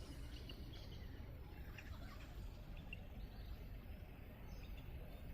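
Faint outdoor ambience: a low, steady rumble of background noise with a few short, scattered bird chirps.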